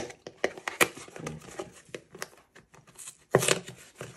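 Paper carton of coconut milk being pulled and torn open by hand: a run of small crackles and crinkles from the coated cardboard, with a louder tear about three and a half seconds in.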